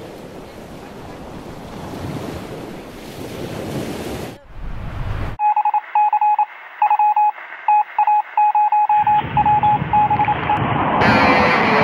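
Wind buffeting the microphone, then, after a cut, a run of electronic beeps at one pitch in an uneven pattern of short and longer tones. Near the end a rising rush of noise takes over.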